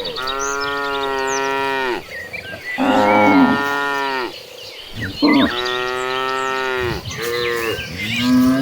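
Cattle mooing: long, drawn-out moos one after another, four long calls and a short one, with faint chirps above them.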